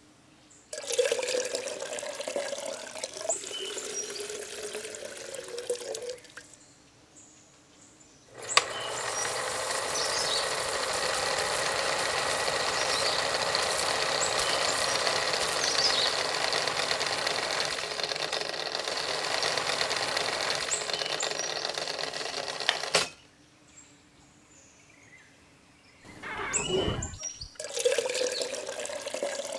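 Water is poured from a cup into a toy concrete mixer's drum of sand and cement. Then the mixer's small motor turns the drum for about fourteen seconds with the wet mix sloshing inside, starting with a click and stopping suddenly. Near the end the wet concrete pours out of the tipped drum into a plastic bowl.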